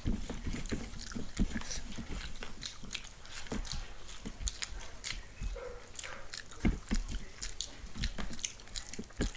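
Close-up eating sounds: chewing and biting food, with many small irregular clicks and taps.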